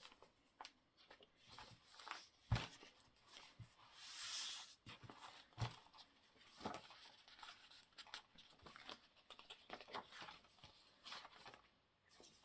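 Paper and card pieces being handled and shifted on a craft table: soft rustles and taps, a longer rustle about four seconds in, and a couple of light knocks.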